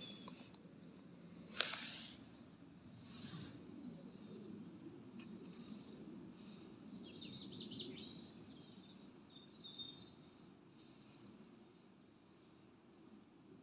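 Small songbirds chirping and twittering in short repeated phrases over a low, steady background hiss, with one sharp tap or knock about a second and a half in.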